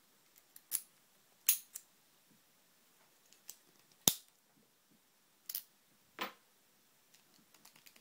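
Tri Circle 263 brass five-pin padlock worked with its key: a run of sharp metallic clicks and snaps, about seven over six seconds, as the key turns and the long shackle is opened and pushed shut again.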